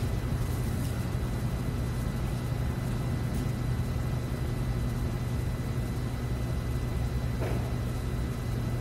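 Steady low room hum with no speech, and a faint brief click about seven and a half seconds in.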